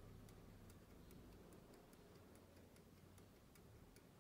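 An antique verge fusee pocket watch (Girardier L'Aine, Swiss silver case, circa 1815) ticking faintly and evenly as it runs.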